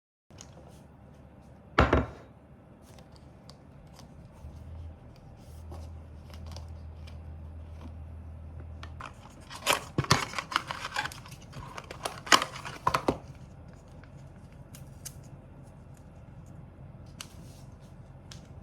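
Rustling and crinkling handling noises, with a sharp knock about two seconds in and a burst of crackly rustles around ten to thirteen seconds in.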